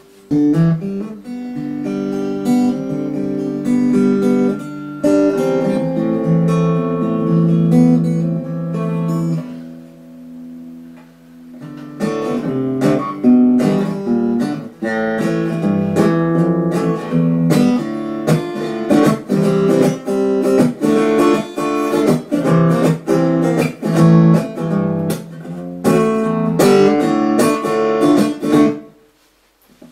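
Snap Dragon Snapaxe A folding travel guitar played through an amplifier. Chords ring out and change every second or two, then there is a brief quieter lull about ten seconds in, followed by faster rhythmic strumming.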